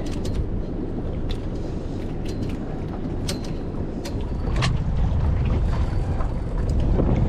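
Steady low rumble of wind buffeting the microphone on an open boat, which grows louder about five seconds in, with a few short sharp clicks.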